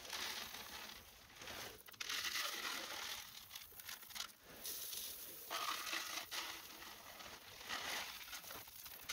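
Small pea gravel poured from a plastic bag, the stones trickling and the bag crinkling, in several pours with short pauses between them.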